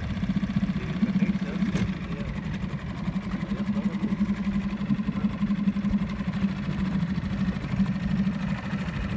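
Small boat motor running steadily at low speed with an even hum.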